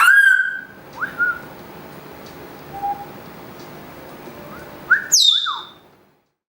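Parrot calling: a loud whistle at the start, a few short chirps, and another loud falling call about five seconds in, over a steady background hiss that stops about a second later.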